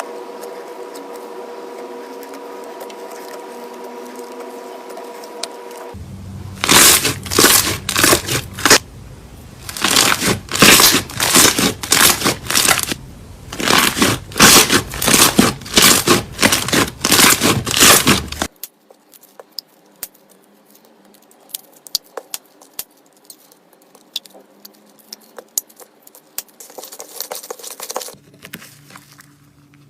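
Slime being squeezed and stretched by hand, crackling and popping in loud bursts over a stretch of about twelve seconds, then settling to quieter scattered clicks and crackles. For the first few seconds only a faint steady hum with a tone is heard.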